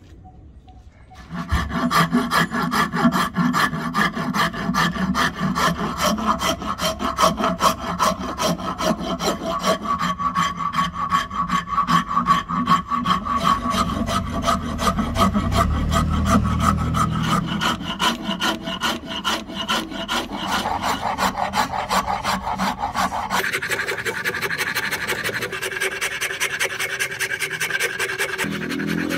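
A hand rasp scraping on a hardwood ebony axe handle in rapid, repeated strokes. It starts about a second and a half in, and the scraping turns lighter and higher-pitched for the last several seconds.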